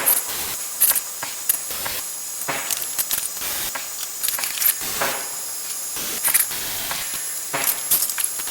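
Irregular metallic clinks and rattles over a steady hiss: metal parts of a steel tool cart being handled and worked on.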